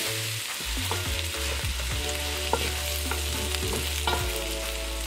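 Chopped vegetables (onions, peppers, tomatoes) sizzling as they fry in a stone-coated wok, with a wooden spatula stirring and scraping the pan. A couple of sharper knocks of the spatula come about halfway through and near the end.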